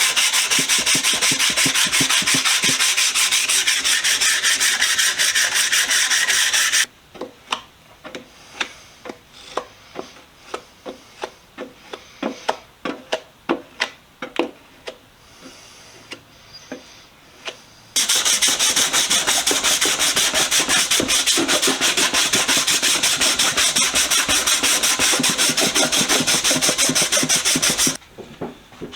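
Sandpaper, about 150 grit, scuffing the primed sheet-metal toolbox: fast continuous sanding for several seconds, then a stretch of slower, separate scraping strokes, then continuous fast sanding again.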